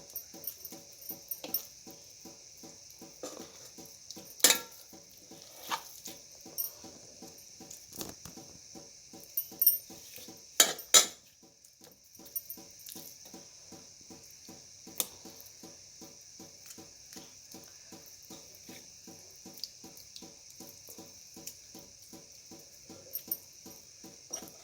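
A few sharp clinks of metal kitchen utensils and dishes, the loudest cluster about ten seconds in, over a faint, steady, rapid pulsing.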